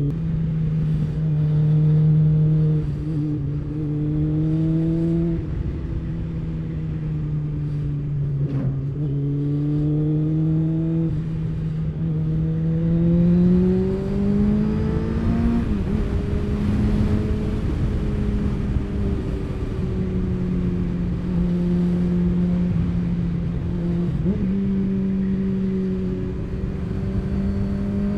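Motorcycle engine under way, its note slowly rising and falling with the throttle and breaking off briefly at several gear changes, over a steady rush of wind and road noise.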